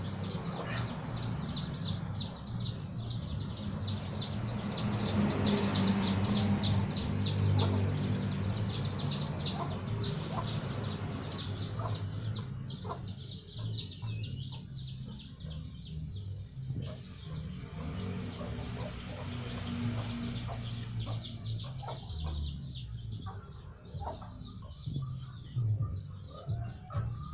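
Chickens clucking, with a rapid run of short high chirps, about three or four a second, that thins out about halfway through.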